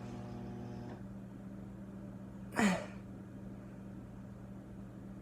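A man's single sneeze, short and sudden, about two and a half seconds in, with its voiced part dropping in pitch.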